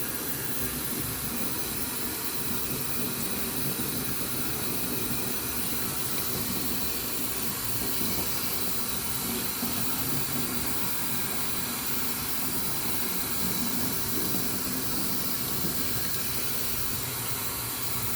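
Tap water running steadily into a laundry sink, rinsing a washing machine's drain pump filter held under the stream by hand: an even hiss with no break.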